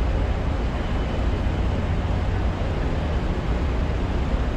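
Steady deep rumble of a roll-on/roll-off ferry's engines.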